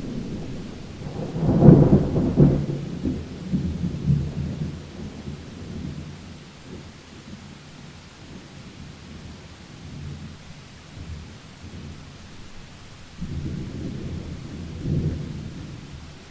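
Thunder over steady rain. A loud clap about two seconds in rolls on and fades over the next few seconds, and a second, quieter rumble comes near the end.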